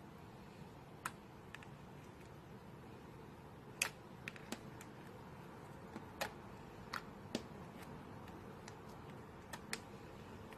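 Scattered faint clicks and light taps, about a dozen at irregular intervals, over a quiet steady background.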